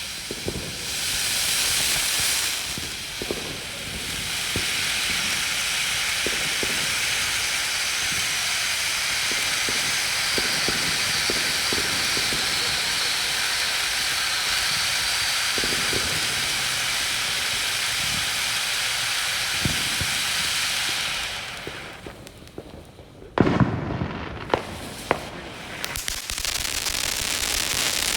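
500-gram TNT Justice firework fountain spraying sparks with a steady loud hiss. It dies down briefly near the end, then a few loud pops go off and the hissing picks up again.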